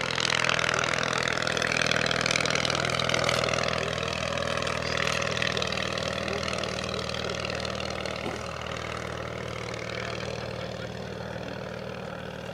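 1923 English Electric Wren ultralight monoplane in flight, its 3 hp 398cc ABC flat-twin motorcycle engine and propeller running with a steady buzz. The sound eases off somewhat in the second half.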